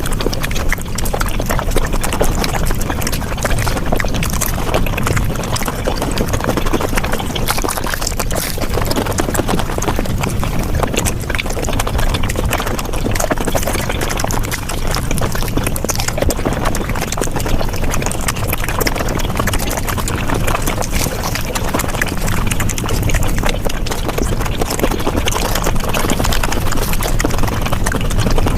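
Close-miked chewing and mouth sounds of eating paratha or luchi flatbread, sped up five times, so the bites, smacks and wet clicks run together into a dense, continuous rapid patter.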